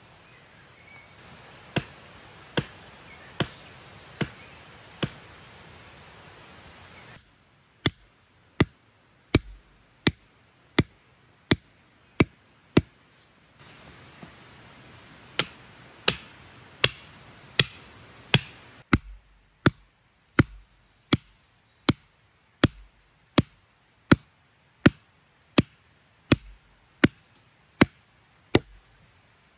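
Repeated blows hammering a short wooden stake into the ground against a log to pin it in place, about one to two strikes a second, some with a brief metallic ring from the striking tool.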